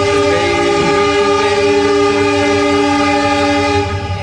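Train horn sounding one long, steady blast that cuts off near the end, over the rumble of the moving train.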